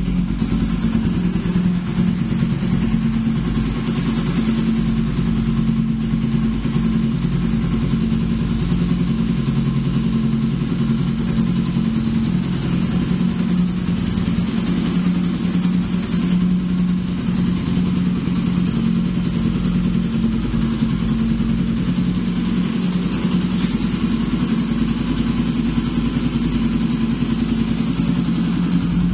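Kawasaki Pulsar 200NS single-cylinder engine idling steadily through an aftermarket Yoshimura R11 exhaust, a low, even exhaust note with no revving.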